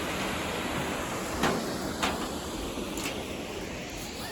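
Waterfall rushing steadily, an even wash of falling water, with a few brief knocks about one and a half, two and three seconds in.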